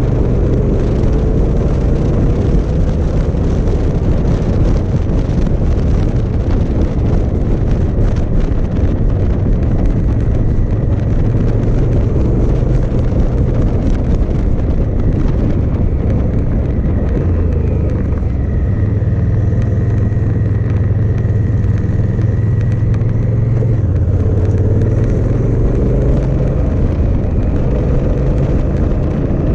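Onboard riding sound of a 2018 Honda Africa Twin DCT: loud wind rush on the microphone over the parallel-twin engine running steadily at road speed. The engine note shifts a couple of times.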